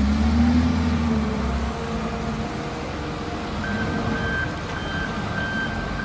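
Large Volvo wheel loader's diesel engine running with a steady low drone. From a little past halfway, a reversing alarm starts beeping at an even pace, a bit under two beeps a second.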